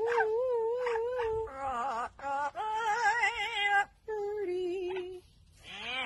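An amazon parrot singing in a human-like, operatic voice: held notes with a wide vibrato in several phrases, then a short pause near the end before it starts again.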